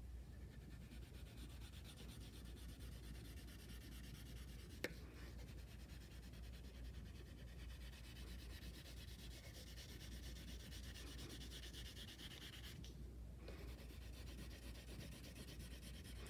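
Wax crayon scribbled quickly back and forth across paper, a faint steady rubbing, with a short pause about thirteen seconds in and one sharp tick near five seconds.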